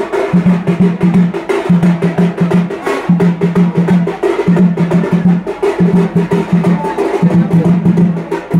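Music of fast drumming: a low drum beaten in rapid runs that repeat about once a second, with sharper percussion strokes over it.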